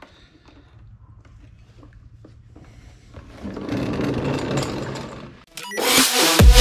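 A small electric motor whirring for about two seconds, swelling and then fading: the actuator of an RPM Powersports electronic exhaust cutout driving its valve. Loud electronic intro music cuts in near the end.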